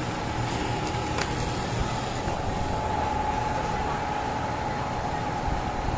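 Steady city-street background noise with a constant hum running through it, and a faint click about a second in.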